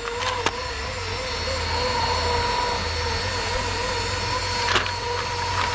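Cordless drill running steadily at high speed, its motor giving a wavering whine, as the bit works at a graphite gasket; the bits are dull and barely cut the graphite.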